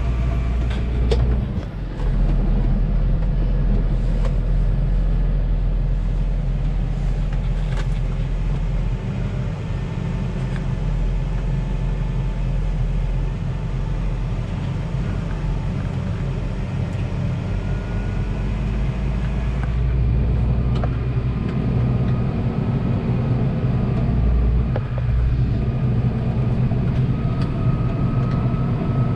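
Farm tractor's diesel engine running steadily, a low continuous drone.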